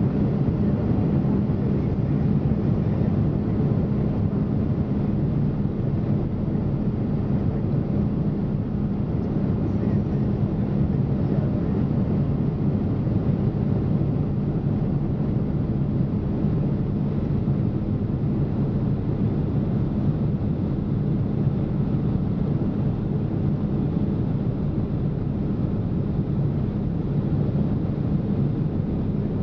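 Boeing 767 cabin noise in flight: a steady drone of the jet engines and rushing air, with a constant low hum underneath.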